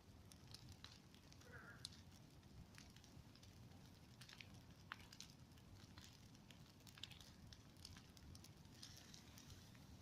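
Bonfire of cut branches burning: faint, scattered crackles and sharp pops from the burning wood.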